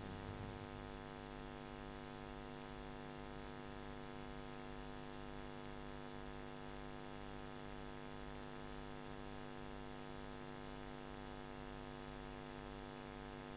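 Steady electrical mains hum: a low, even buzz made of a stack of steady tones, with no other sound over it.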